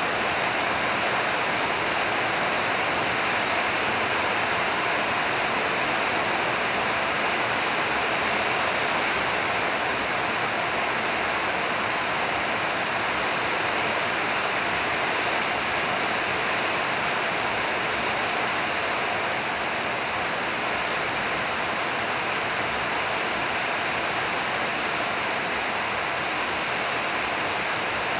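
A steady, even rushing noise, like heavy rain, a fan or running water, with no breaks or changes in level.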